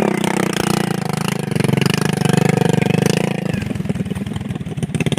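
Vehicle engine running at a steady raised speed, then dropping to a slower, pulsing run about three and a half seconds in.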